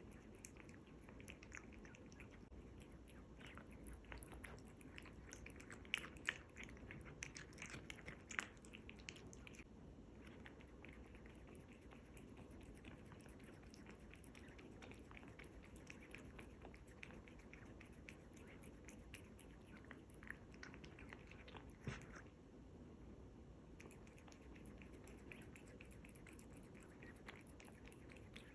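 A cat chewing and biting raw lamb kidney: faint, continuous wet chewing with small clicks, and a few sharper clicks about six and eight seconds in and again past the twenty-second mark.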